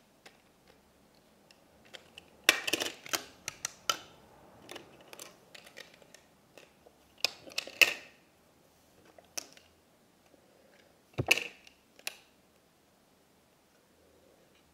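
Small hard-plastic Polly Pocket compact being handled: scattered clicks and clatters in several short clusters, with one heavier knock about eleven seconds in.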